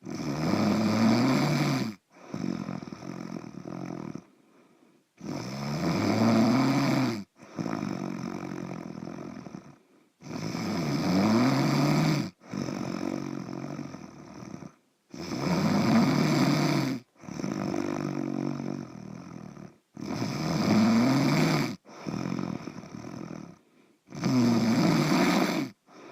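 Heavy, regular snoring: six loud snores on the in-breath, each about two seconds long and coming about every five seconds, each followed by a quieter out-breath.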